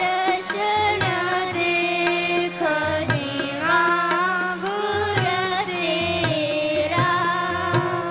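Sikh kirtan: a voice singing a hymn over harmonium and tabla, with steady harmonium tones under the melody and a regular pattern of tabla strokes and low bass-drum notes.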